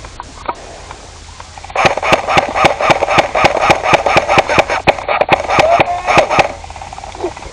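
Airsoft gun firing a long rapid string of shots, about six or seven a second, starting a couple of seconds in and stopping abruptly after about four and a half seconds.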